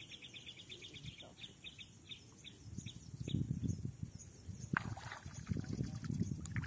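A bird chirps in a quick repeated series for the first couple of seconds. Then, from about three seconds in, low rough splashing and knocking build up as a hooked fish thrashes at the surface near the bank, with one sharp knock near five seconds.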